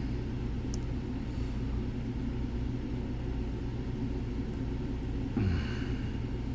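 Steady low background rumble, with a faint single click under a second in and a brief louder sound with a falling pitch near the end.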